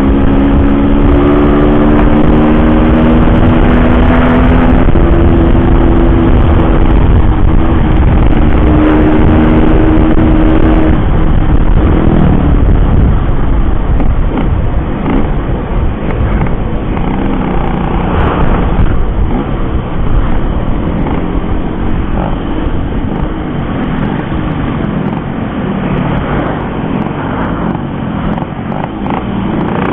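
Yamaha RX King's two-stroke single-cylinder engine running under way as the bike is ridden, its pitch holding and slowly rising for the first ten seconds or so. After that the engine note is less distinct in a denser rush of riding noise.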